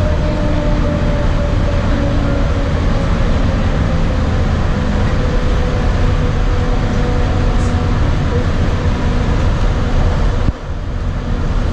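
Walt Disney World monorail running along its beamway, heard from inside the car: a steady, loud rumble and running noise with an electric motor whine that slowly falls in pitch. The noise drops briefly near the end.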